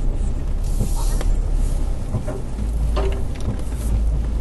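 Off-road vehicle engine running low and steady while crawling over a rough trail, with a few scattered knocks and clicks. Brush and branches scrape briefly along the body several times.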